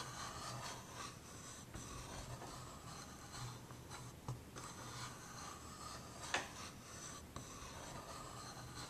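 A scoring tool drawn repeatedly along the groove of a scoreboard, scraping as it presses a score line into cardstock. There is a sharp tap about six seconds in.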